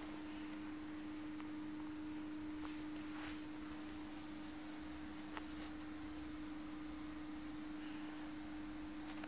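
Steady single-pitched electrical hum with faint hiss and a few soft clicks.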